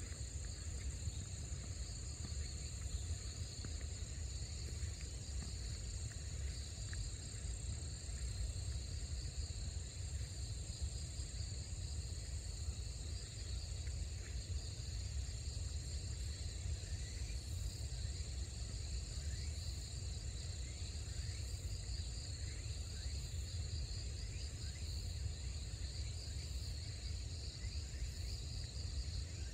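Steady outdoor insect chorus, a continuous high-pitched shrilling in two high bands, over a low steady rumble. Faint short chirps come and go in the second half.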